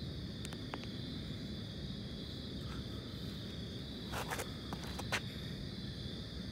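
Night insects trilling steadily in one continuous high-pitched chorus. A few short scuffs of footsteps come about four and five seconds in.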